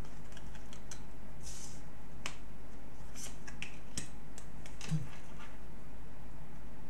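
Oracle cards being laid one after another onto a wooden tabletop: light taps and short sliding swishes of card on wood, scattered across the few seconds.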